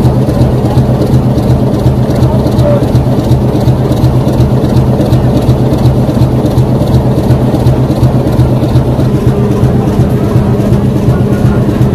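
Diesel locomotive engine idling with a loud, steady low drone.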